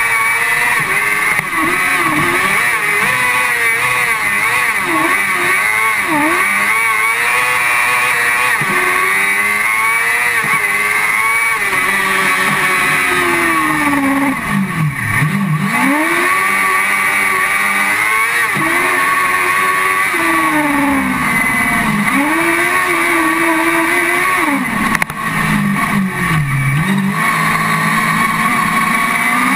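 Motorcycle-engined car cross buggy running flat out, heard from inside its cockpit. The revs climb and drop over and over, falling steeply to low revs about halfway through and again near the end.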